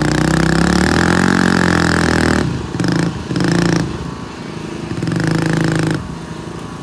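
Small engines of a John Deere lawn tractor and a Kawasaki Bayou 220 ATV revving hard under load as they pull against each other. The revs hold high for about two and a half seconds, then cut in and out in shorter bursts.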